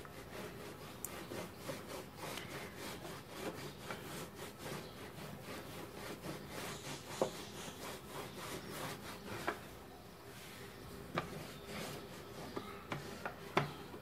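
Stainless-steel rolling pin rolled back and forth over a flour-dusted stack of thin dough sheets, a steady scraping rub with a few light clicks in the second half.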